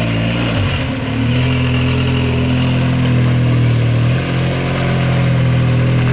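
Engine of a four-wheel-drive off-road vehicle running at a steady, fairly even pitch while being driven, with brief dips about a second in and again about four seconds in.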